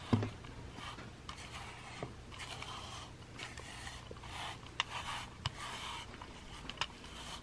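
A pet grooming brush being stroked through a cat's fur, making a soft rasping scrape about once a second, with a few light clicks in between.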